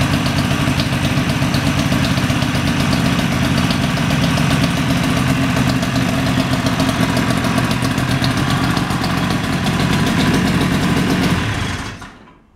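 1976 Ski-Doo Olympique 340's two-stroke engine idling steadily, running again after a full rebuild of a seized engine with new piston rings, fuel pump and fuel lines; it stops near the end.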